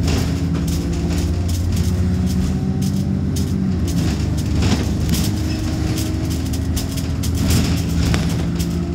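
Double-decker bus heard from inside, its engine running with the note rising and falling as it changes speed, over road noise and frequent small knocks and rattles.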